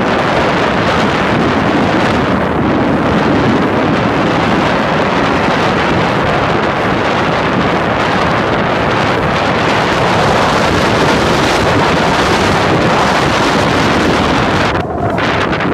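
Steady, loud wind buffeting the microphone on an inflatable boat under way, over the rush of water along the hull. It eases briefly near the end.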